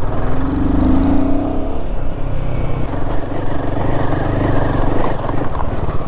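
Royal Enfield Himalayan's single-cylinder engine running under way, its note rising as the bike accelerates about half a second in and then holding steady, over a constant rush of wind and road noise.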